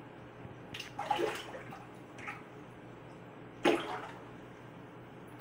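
Peacock bass striking shrimp at the aquarium's water surface: two sharp splashes, about a second in and again near four seconds, with a smaller one between, over a low steady hum.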